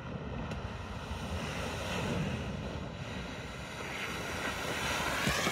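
Water splashing and rushing as a Tesla Model Y drives through a muddy water crossing, slowly getting louder as it comes closer.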